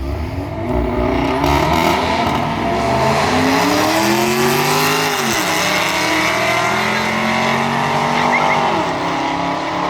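Volkswagen Golf GTI and Holden VE SS Commodore accelerating hard down a drag strip. Their engine notes climb in pitch, one dropping sharply on a gear change about five seconds in and the other holding steady before dropping near the end.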